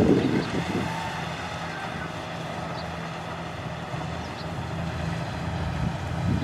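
Kubota rice combine harvester's engine running at a steady, even drone. Wind buffets the microphone in the first moment.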